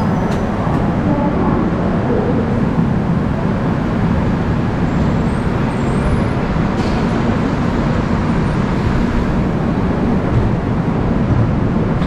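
Steady rumbling of an Indian Railways Duronto Express passenger train as it pulls slowly away from the station.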